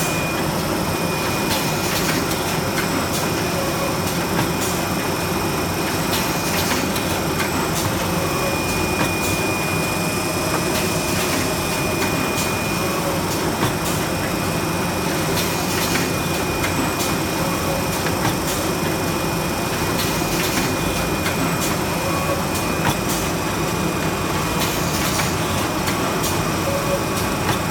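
Steady factory machinery noise with a faint high whine and scattered short clicks and knocks, as around a running rigid box making machine.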